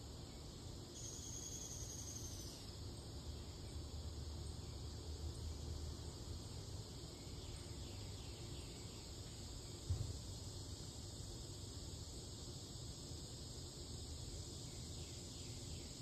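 Outdoor summer ambience of insects chirping and buzzing steadily, with a brief higher steady tone about a second in that lasts a second and a half. A low rumble sits underneath, and a single low thump comes about ten seconds in.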